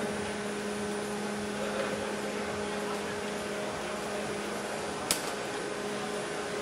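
Steady whir of the large fans that blow wind across the test basin, with a low steady hum under it. A single sharp click about five seconds in.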